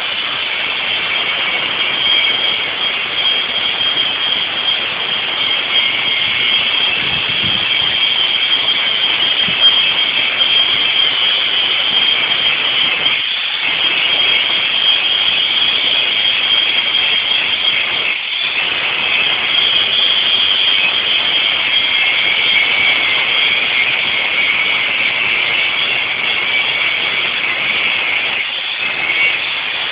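Concrete block and paving block press machine running: a loud, steady mechanical noise that drops out briefly twice, a little before and a little after the middle.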